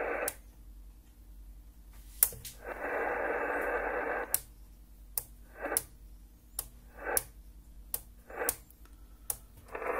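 Kenwood TS-430S HF transceiver keyed on and off into a CW carrier: its transmit/receive relay clicks at each switch, about a dozen times. Between transmissions the receiver's narrow-band static hiss comes back from the speaker for a second or two, with the longest stretch near the middle.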